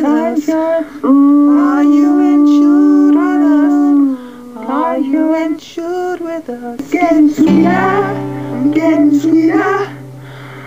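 Music with a high singing voice moving through wavering, gliding notes, holding one long note for about three seconds starting about a second in. A low steady note joins past the halfway point.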